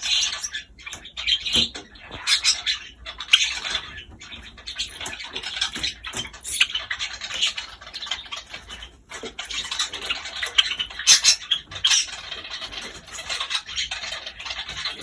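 Pet small birds making a string of short, scratchy chirps and rustling sounds.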